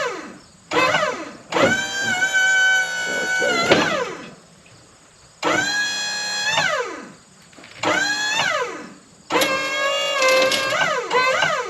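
Wood-Mizer LT35 sawmill's hydraulic pump whining in five short runs, each spinning up to a steady pitch and winding down with a falling whine when released, as the hydraulics move the log.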